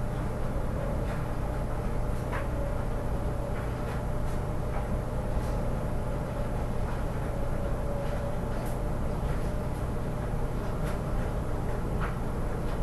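A steady low background hum with a few faint, sharp clicks scattered through it.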